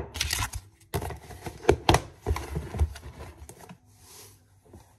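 Irregular clicks, taps and rustles of a plastic food container being handled, dying away after about three and a half seconds.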